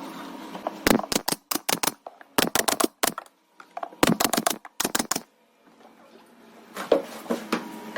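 Sharp clicks and knocks, several a second, in quick clusters about a second in, near three seconds, near four to five seconds, and again near the end, with a short lull between.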